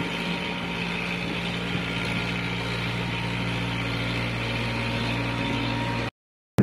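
1985 International tractor's diesel engine running steadily while it pulls a rotavator through the soil, a constant low engine note that cuts off abruptly near the end.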